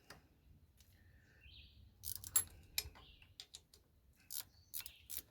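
Ratchet wrench clicking in short, irregular runs while loosening the bolts of a tractor starter. A bird chirps faintly about a second in.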